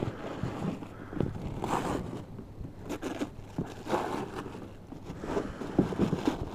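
Tissue paper rustling and cardboard model boxes being handled, with scrapes and light knocks, the loudest near the end, over wind rumble on the microphone.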